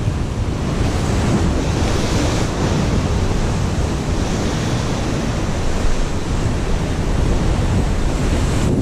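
Ocean surf washing and breaking around the concrete blocks of a rock wall, a steady rush of whitewater, with wind buffeting the microphone.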